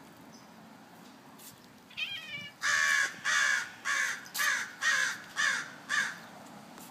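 A crow cawing about seven times in a quick, even run, roughly two harsh caws a second. Just before the caws there is a brief wavering trill.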